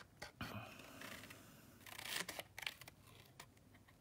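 Small Tim Holtz craft scissors cutting paper: a few faint snips, a couple near the start and several close together from about two seconds in.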